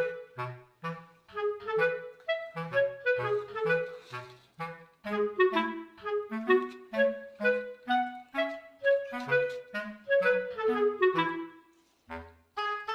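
Background music: a bouncy instrumental tune of short, detached notes with a woodwind lead over a bass line. It drops out briefly about a second before the end, then starts again.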